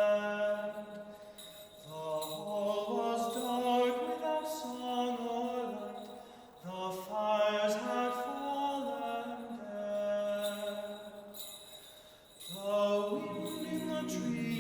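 Slow background music: sustained chords in phrases that swell and fade about every five seconds.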